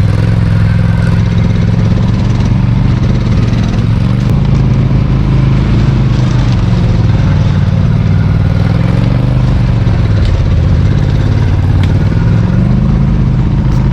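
Off-road ATV or side-by-side engine running under way on a trail, its pitch sagging and rising a few times with the throttle.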